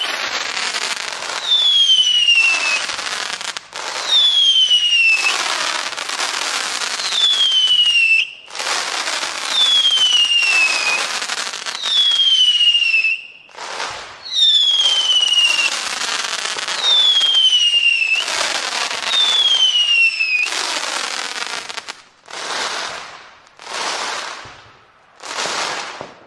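Fireworks going off in quick succession: about nine whistles, each falling in pitch and followed by a long noisy burst, coming roughly every two seconds. Near the end come three shorter bursts without whistles.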